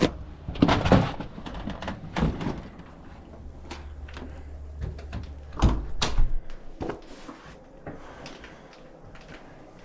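A series of sharp knocks and thumps, the loudest about a second in and again about six seconds in, over a steady low hum that stops at the second loud thump.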